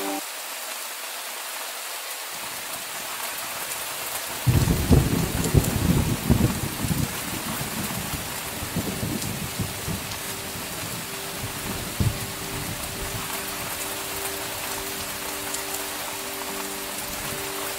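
Steady heavy rain with a thunderclap about four seconds in that rumbles for a few seconds before fading, and a shorter crack of thunder near the end of the middle. Soft background music tones come back faintly in the second half.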